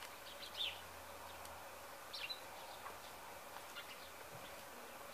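Faint outdoor ambience with a few short, high bird chirps scattered through it.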